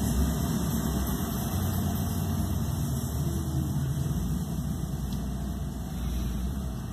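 Steady low background rumble, like a motor running, with no distinct events.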